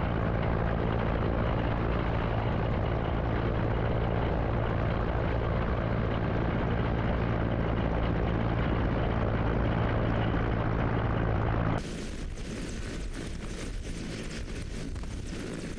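Mi-8 helicopter's rotor and turbines running steadily in low, fast flight, loud, with a steady low hum under the rushing noise. About twelve seconds in it cuts to a quieter, rougher helicopter noise.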